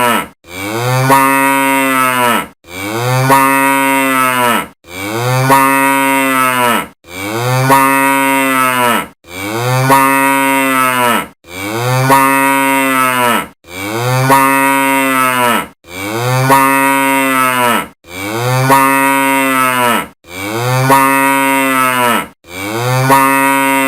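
A cow mooing: the same long moo repeats about every two seconds, each one rising at the start and falling away at the end.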